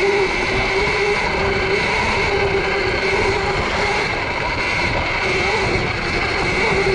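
Sur-Ron electric dirt bike riding along, its motor and drivetrain giving a steady, slightly wavering whine over a continuous rushing noise.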